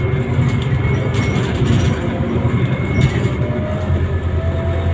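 Inside a Scania Citywide CNG city bus under way: a steady low hum from the gas engine and drivetrain, mixed with road noise and occasional rattles. Near the end a faint whine rises in pitch.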